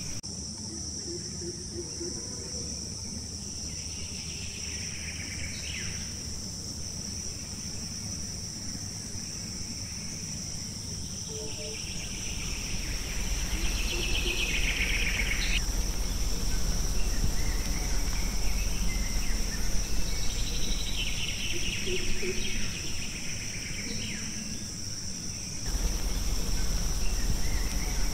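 Forest ambience: a steady high-pitched insect drone, with a louder buzzing call that swells and then stops abruptly, three times, about eight seconds apart. A low rumble comes up in the second half.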